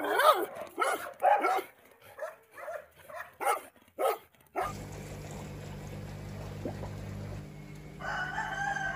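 A Labrador barking repeatedly in short, separate barks. About four and a half seconds in, this gives way to the steady electrical hum of an aquarium pump.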